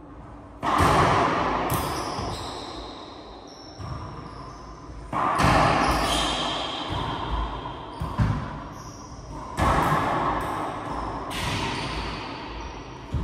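Racquetball play in an enclosed court: about seven sharp smacks of the ball off racquets and walls, spaced irregularly, each ringing out in a long echo.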